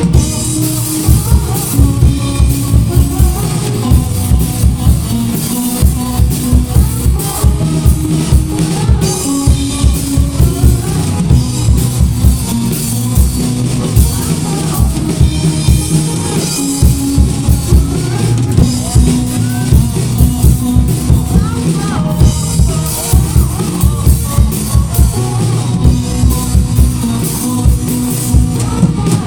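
Rock band playing with a driving drum-kit beat, a steady kick drum and a repeating bass line.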